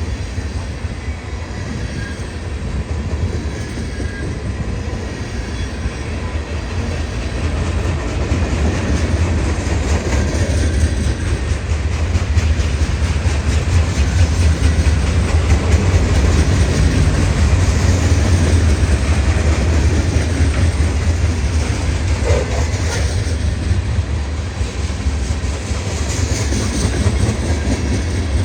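CSX freight train moving through a rail yard: a steady low rumble with wheels clicking over the rail joints, growing louder about a third of the way through.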